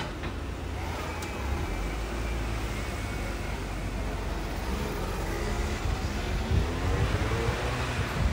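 A motor vehicle passing along a street: a low engine rumble that rises in pitch and grows louder as it accelerates over the second half.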